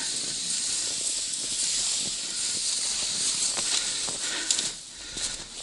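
A steady hiss of a loaded fishing sled's runners being dragged over snow, with a few short crunches near the end.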